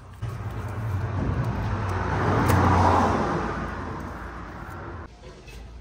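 A motor vehicle passing by: engine and tyre noise swells to a peak about halfway through, then fades, and cuts off abruptly about five seconds in.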